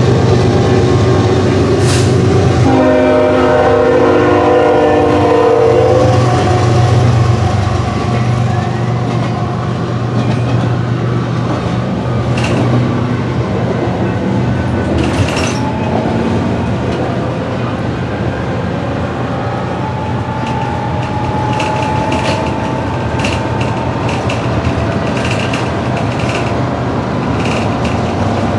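Freight locomotive air horn sounding a chord of several notes in one long blast about three to six seconds in, over a steady low engine drone heard from inside a moving city bus. A run of quick clicks follows near the end.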